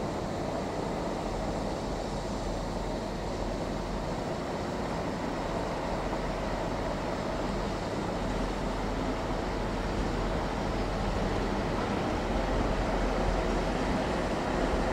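TransPennine Express Class 185 diesel multiple unit running in slowly: a steady low diesel engine rumble that grows a little louder towards the end as the unit approaches.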